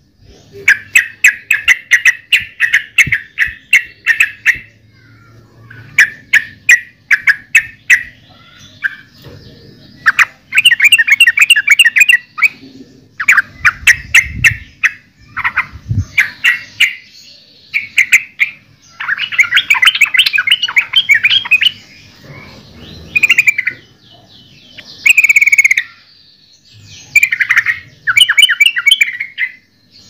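Yellow-vented bulbul singing: loud bursts of rapid chattering notes, each lasting one to three seconds, repeated with short pauses between them.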